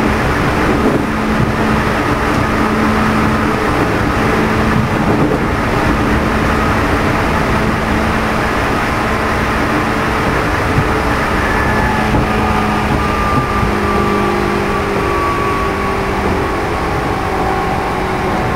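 Running noise inside a JR East 211 series motor car (MoHa 211-1) under way: a steady rumble of wheels on rail with the hum and whine of its DC traction motors, which have external cooling fans. Faint whine tones slowly fall in pitch in the second half.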